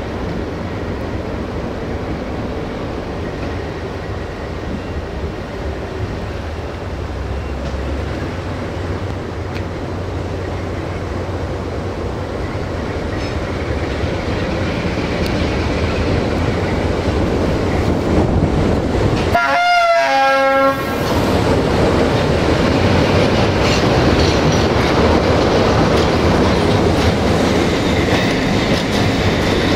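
Electroputere LDE2100 (class 60) Sulzer diesel locomotive pulling into the station with a passenger train, its engine running steadily. About twenty seconds in it sounds a short two-note horn, higher then lower. Then the coaches roll past, getting louder toward the end.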